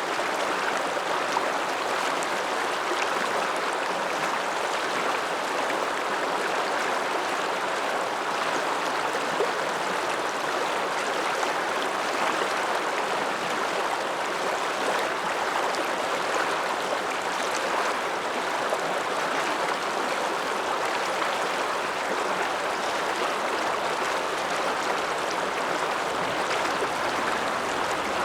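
Alpine mountain river rushing steadily, an even, unbroken wash of flowing water.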